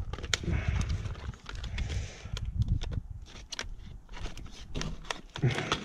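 Thick hard-plastic blister packaging of saw blades being pried and torn open by hand: an irregular run of sharp crackles and clicks.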